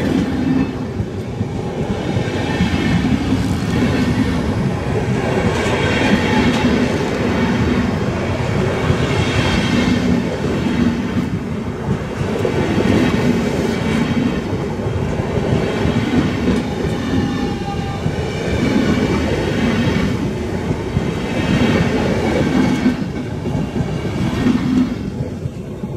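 Alpen Express passenger coaches rolling past at speed, their wheels clattering over rail joints, with a swell about every three seconds as each coach's wheelsets go by. The noise eases off near the end as the last coach passes.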